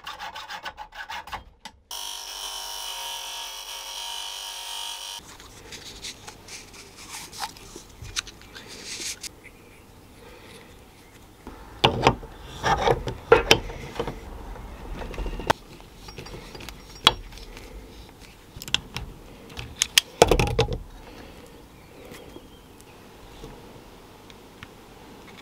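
Hand-tool work on metal parts in a workshop. First comes a steady cutting sound on a metal pipe for a few seconds. Then an adjustable wrench and a quick-connect air fitting give scattered clicks and metal knocks, loudest in clusters about twelve and twenty seconds in.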